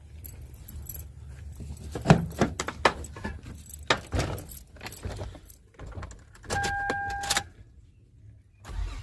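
Keys jangling and clicking on a key ring, then a steady electronic chime for about a second. Near the end the 2005 Toyota Sienna's 3.3-litre V6 starts up with a loud low rumble, cranking at last after the starter work.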